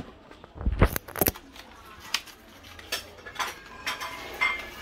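Packaging being handled: a small cardboard box and plastic-bagged faucet parts knocking and rustling in a cardboard carton. A few sharp knocks about a second in, then scattered lighter clicks and rustles.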